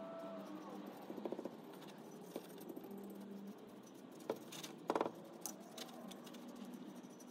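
A paintbrush scrubbing liquid rust remover onto the rusty metal tubes of a Nissan 240SX fuel sending unit: faint scratchy brushing with light clicks and taps of the brush against the metal. The loudest taps come about four to five seconds in.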